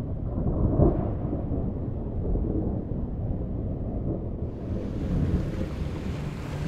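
Thunder rumbling low and rolling, swelling about a second in, with a steady rain-like hiss coming in after about four and a half seconds.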